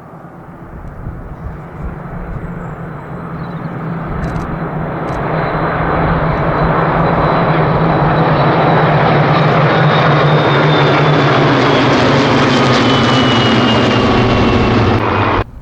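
A formation of Spitfire and Hurricane piston-engined fighters flying past. The engine noise builds over the first few seconds and stays loud, and its pitch falls near the end as the aircraft pass. The sound cuts off suddenly just before the end.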